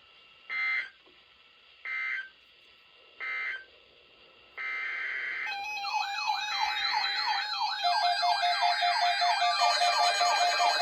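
Three short bursts of EAS data tones, the end-of-message signal that closes a weather radio alert. About four and a half seconds in, a steady high tone starts, then gives way to a fast, repeating up-and-down siren-like wail over layered electronic tones that grows louder toward the end.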